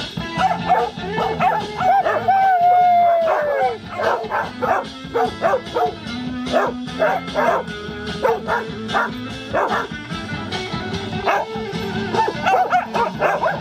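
Several dogs yipping and barking excitedly in rapid short yelps over a song playing in the room, with one longer yelp that falls in pitch about three seconds in.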